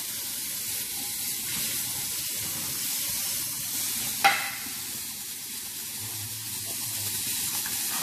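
Kitchen tap running steadily into a stainless steel sink, with a single sharp knock about four seconds in.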